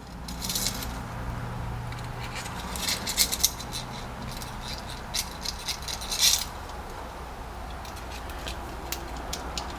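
Light metallic clinks and scrapes of a torch tip cleaner being worked into the emulsion tube holes of a lawnmower carburetor to clear them, over a steady low hum.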